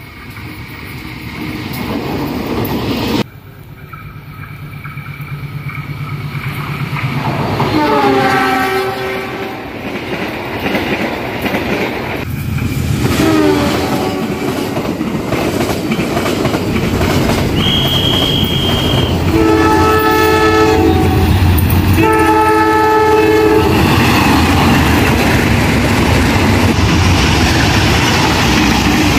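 Diesel locomotives hauling trains pass close by in several short clips, with engine rumble and wheels clattering on the rails throughout. Air horns sound several times: blasts that fall in pitch as the train passes, about 8 and 13 seconds in, a short high single tone around 18 seconds, and two long chord-like blasts about 20 and 22 seconds in. The sound jumps abruptly between clips about 3 and 12 seconds in.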